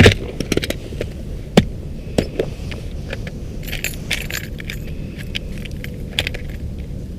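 Ice-fishing tackle being handled: scattered light metallic clicks and clinks over a steady low rumble.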